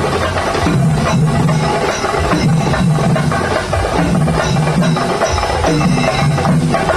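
Kerala temple-festival percussion ensemble playing loudly and continuously: rapid drum strokes and cymbal clashes over a low, shifting pitched tone.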